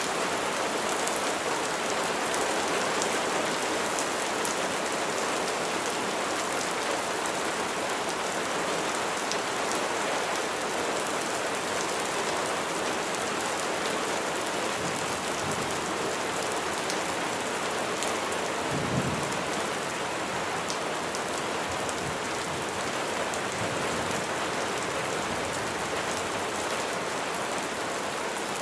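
Steady heavy rain falling, with close drops ticking on surfaces. A few low rumbles of distant thunder come in the second half, the strongest about two-thirds of the way through.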